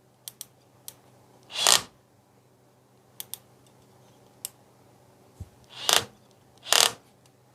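Scattered light clicks and knocks from handling a cordless drill-driver, with three short hissy bursts, two of them close together near the end.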